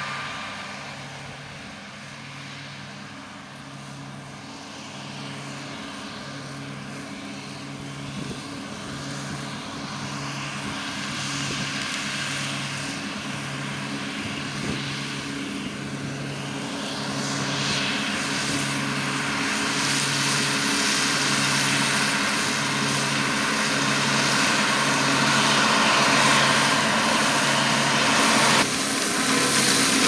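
John Deere 7290R tractor running a KRM grass topper through stubble, with combines working behind it. The engine and topper drone grows steadily louder as the tractor comes closer, under a low throb that repeats a little under once a second. The sound changes abruptly near the end.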